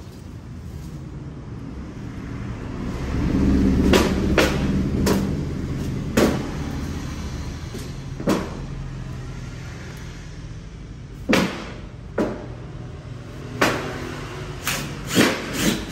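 A low rumble swells a few seconds in and fades, with about ten sharp knocks at irregular intervals, more of them near the end.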